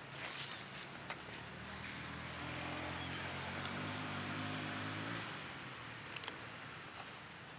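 A motor engine hums, growing louder about two seconds in and fading out a little after five seconds, over a steady background hiss. There are a few faint clicks.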